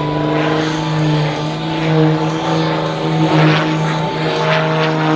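MXS-RH aerobatic monoplane's propeller engine running steadily at high power, its pitch wavering slightly as the plane tumbles end over end.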